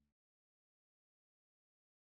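Silence: the soundtrack cuts to digital silence.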